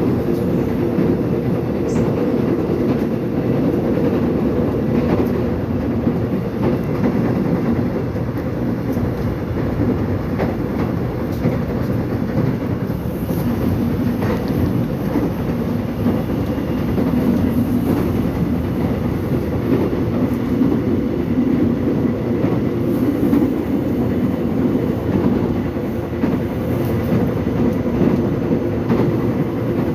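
Korean subway train running between stations: a steady rumble of wheels on rail with faint clicks.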